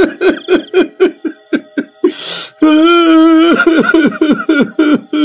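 A person sobbing: quick rhythmic sobs, a sharp gasping breath about two seconds in, then a long drawn-out wail that breaks back into sobs.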